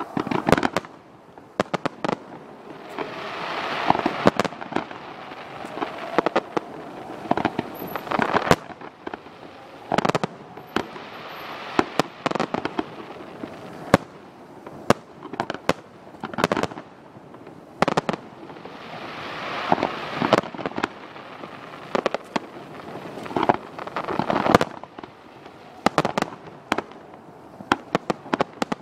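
Aerial fireworks display: a steady run of sharp shell bursts, irregularly spaced, with two longer stretches where they merge into dense crackling.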